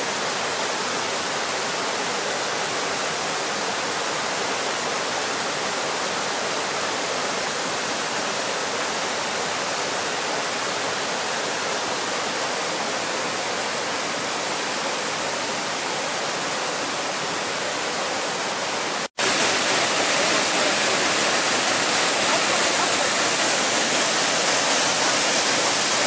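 Waterfall pouring into a pool, a steady rush of water. It cuts out for an instant about three quarters of the way through and comes back a little louder.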